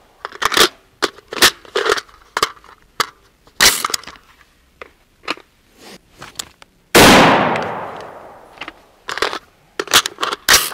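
AR-15 rifle being reloaded: a quick run of sharp metallic clicks and clacks from the magazines and the action. About seven seconds in comes a single rifle shot with a long echoing tail, followed by more clicks.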